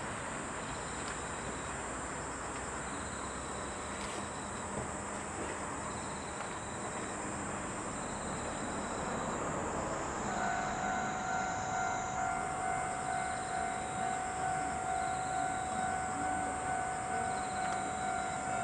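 Diesel railcars running with a steady rumble; about ten seconds in, a railway level crossing alarm starts ringing, an electronic clang repeating about twice a second for the rest of the time.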